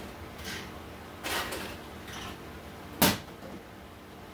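Ice being scooped and dropped into a cup in a few short rattles, then a single sharp knock about three seconds in.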